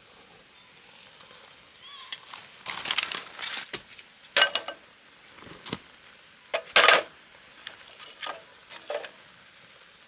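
Split firewood pieces set into a metal fire pit over burning fuel, knocking and clattering against each other and the metal. The knocks come in an uneven run, loudest about four and a half and seven seconds in.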